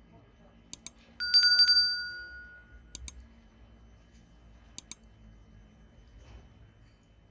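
A bright metallic ring, four quick strikes that ring on for about a second, like a small bell. Around it come sharp clicks in pairs every couple of seconds.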